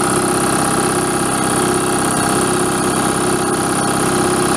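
BelAir electric air compressor running steadily, its pump building tank pressure past 120 psi toward its 135 psi cut-off.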